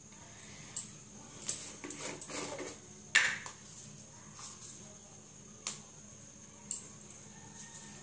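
Scattered short clicks and light plastic clatter as a small plastic container of cumin seeds is handled and its lid opened, over a faint steady hiss.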